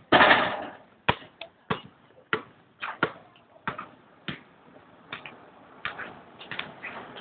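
A basketball bouncing on a hard outdoor court, single knocks about every half second to second as it is dribbled. A short loud rush of noise comes right at the start.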